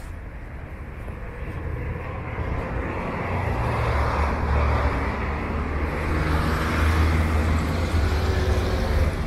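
Road traffic noise: a motor vehicle's engine rumble grows louder over the first few seconds and stays up through the rest.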